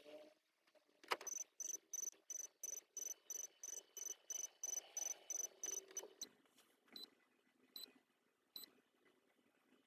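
A click, then quick high electronic beeps, about four a second for some five seconds, followed by three slower, lower beeps, as the car's ignition is switched off.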